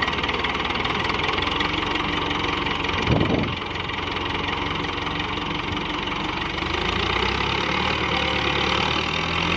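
Massey Ferguson 265 tractor's three-cylinder diesel engine running steadily under heavy load as it hauls a loaded trolley up a sandy slope, with one short, loud burst about three seconds in.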